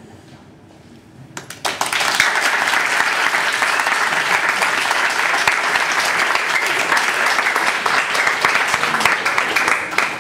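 A room of wedding guests applauding, breaking out about a second and a half in and keeping up steadily.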